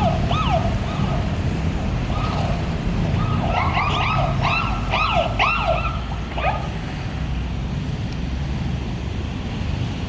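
A small dog yipping in a quick string of short high yelps, thickest in the middle, over a steady low rumble of street traffic.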